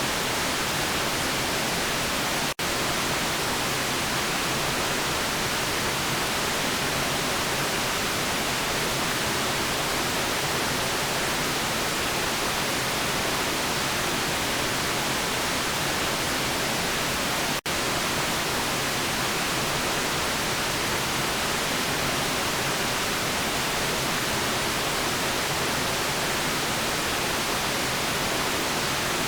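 Steady white noise, an even hiss spread across all pitches, broken twice by a split-second dropout, about two and a half seconds in and again near seventeen and a half seconds.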